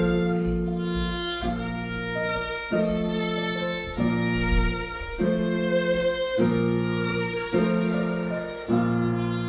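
Violin playing a melody with digital piano accompaniment, the piano's chords changing about once a second.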